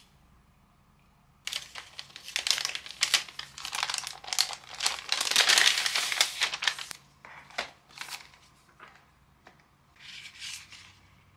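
White paper mailer envelope being torn open and handled: a dense run of paper crinkling and tearing starting about a second and a half in and lasting some five seconds, then thinning to a few rustles, with a short rustle of packaging near the end.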